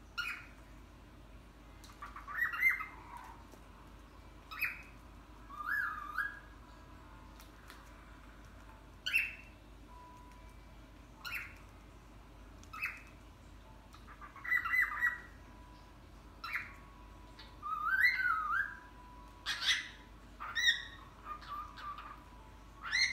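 Pet cockatiels calling and whistling: about a dozen short calls spread out, some quick rising squawks and some warbling whistled phrases.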